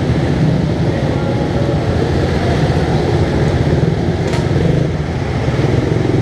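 Small minibike engine running steadily while being ridden, with a brief dip in level near the end.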